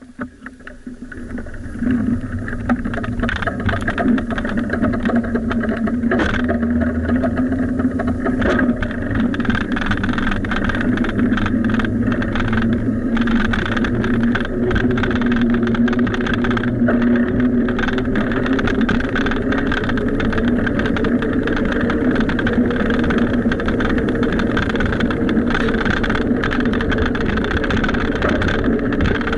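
Steady running noise of a bicycle underway: rushing air and road hum. It builds over the first two seconds, then holds steady, with a low hum that slowly rises in pitch.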